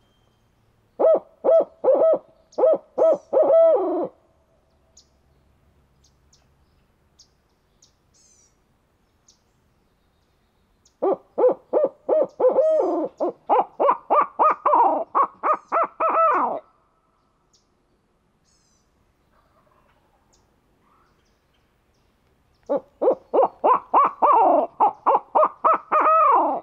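Hand-blown owl hooter used as a turkey locator call: three loud series of rapid owl-like hoots, the later two series rising and falling in pitch, blown to make gobblers answer so they can be pinpointed.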